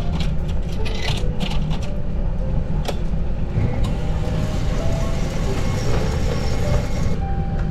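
Steady low rumble of a large ferry's engines heard on board, with a hiss rising from about three and a half seconds in and stopping shortly before the end. Faint background music plays over it.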